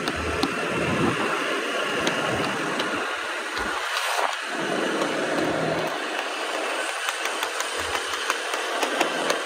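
Motorcycle running at road speed, its engine mixed with rushing wind noise on the microphone that swells and fades in gusts.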